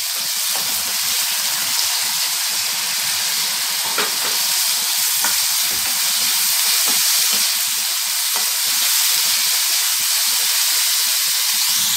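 Sliced onion and chopped vegetables frying in hot oil in a kadhai: a steady sizzling hiss, with a few faint clicks.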